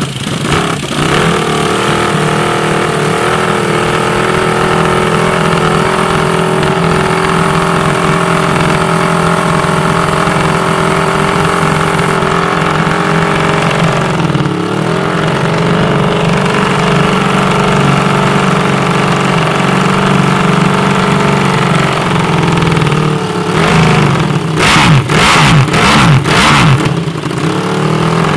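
Ducati Desmosedici GP5 990cc MotoGP bike's V4 engine idling fast and steady through its race exhaust, with a brief dip in revs about halfway through. Near the end the throttle is blipped in several sharp, loud revs.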